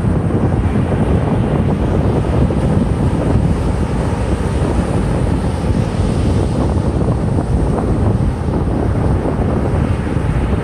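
Wind buffeting the microphone, heavy and low, over the steady wash of breaking ocean surf.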